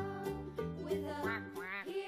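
Soft instrumental background music: a simple children's tune of held notes, with a few notes bending up and down in pitch.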